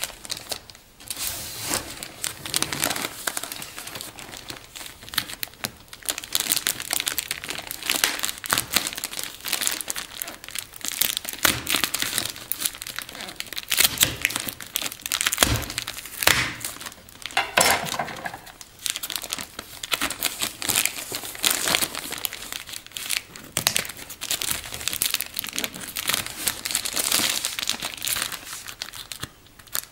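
Plastic mailing bag and metallic foil packaging crinkling and rustling as they are handled and opened, in a dense, irregular crackle starting about a second in.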